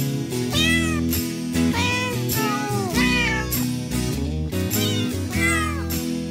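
A cat meowing several times over background music, each meow rising and then falling in pitch.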